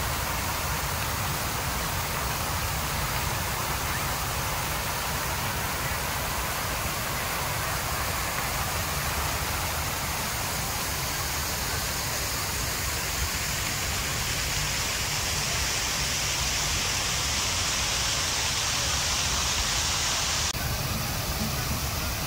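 Ornamental fountain water splashing and rushing steadily; a brighter, hissier spray builds about two-thirds of the way through and cuts off suddenly near the end.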